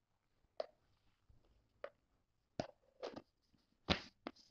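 Scattered sharp plastic clicks and taps: a plastic scoop knocking against a plastic shaker bottle as protein powder is tipped in, then the shaker's lid being fitted on, the loudest click about four seconds in.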